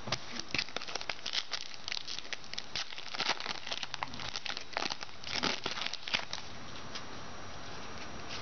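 Crinkling and crackling of a football trading-card pack wrapper as the pack is opened and its cards handled, in quick irregular bursts that stop about six and a half seconds in.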